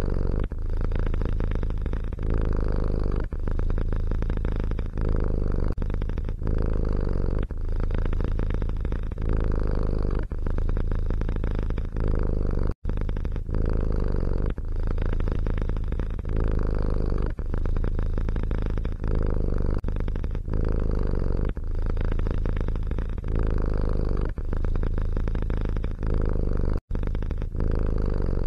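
Domestic cat purring steadily and loudly, the rumble rising and falling about every one and a half seconds with its breathing. The sound cuts out for an instant twice.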